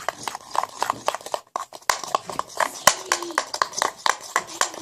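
Homemade glue-and-shaving-cream slime being squished and stirred, a rapid, irregular run of wet clicks and pops.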